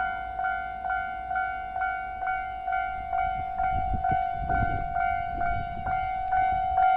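Japanese level crossing's electronic warning bell ringing at about two strikes a second, while a 115 series electric train passes with a low rumble and wheel knocks loudest about four to five seconds in.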